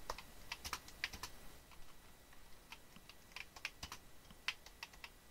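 Commodore PET keyboard being typed on: a quiet, irregular run of key clicks as a sentence is typed.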